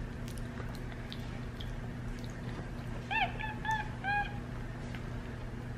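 Capuchin monkey making a quick run of four short high-pitched calls about three seconds in, over faint clicks as it eats a banana.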